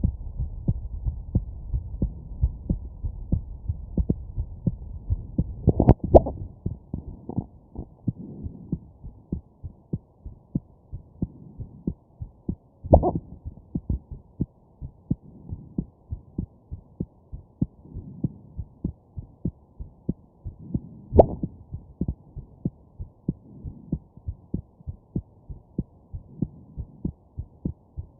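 A person's heartbeat, close and steady, at about one and a half beats a second. It is broken three times, about six, thirteen and twenty-one seconds in, by a louder sudden jolt: a hiccup.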